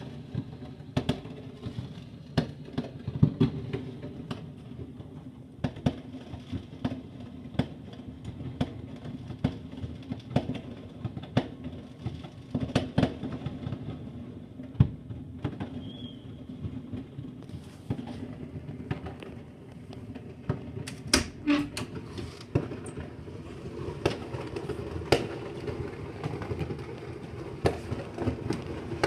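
New Year fireworks going off: many sharp bangs and pops at irregular intervals over a steady low background noise.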